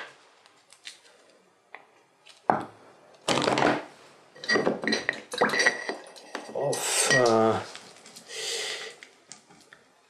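Clattering and clinking of paintbrushes and painting tools being handled in a container: a run of separate knocks and rattles, one with a short ringing clink in the middle.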